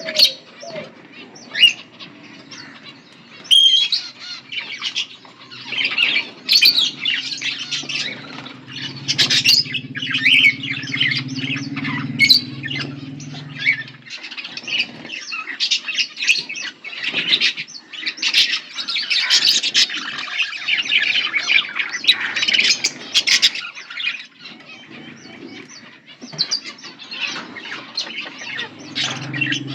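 A flock of budgerigars chattering and chirping, with rapid, overlapping squawks and warbles. A low steady hum sits underneath for several seconds around the middle.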